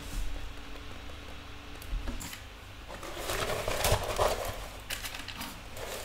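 Paper-and-plastic rustling and crinkling as a rolled diamond-painting canvas, with its glossy protective film, is unrolled and smoothed flat by hand. The handling grows busier about halfway through.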